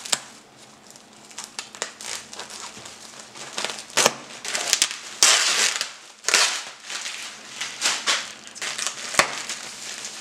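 Plastic wrapping on a package crinkling and crackling as it is cut and pulled away by hand, in irregular rustles with sharp clicks, loudest for a second or so about halfway through.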